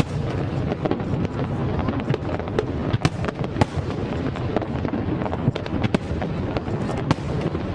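Aerial fireworks display going off: a continuous rumble of booms with many sharp cracks on top, two of them louder about three seconds in.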